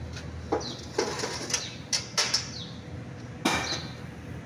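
Several sharp clicks and knocks, the loudest about three and a half seconds in, as a large plastic engine-oil jug is set against the truck engine's oil filler neck. A bird calls in short falling chirps about once a second.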